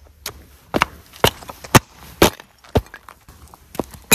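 Footsteps of sneakers on bare, gritty rock, about two steps a second, ending in a sharper knock.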